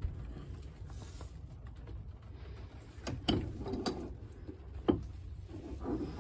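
A few sharp metal clicks and knocks from a bench vise being worked by hand, with a brass shotgun-shell head clamped in its jaws. Most of the clicks come between about three and five seconds in.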